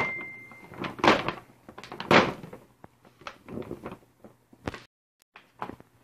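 Paper gift bag rustling and crinkling as hands dig into it, in irregular bursts with the two loudest about a second apart. A high steady tone rings on briefly at the start.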